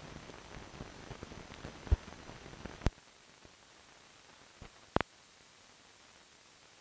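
Hiss and crackle of an old film soundtrack, with scattered clicks and two sharp pops; about three seconds in it drops to a fainter hiss, with one more sharp click near five seconds.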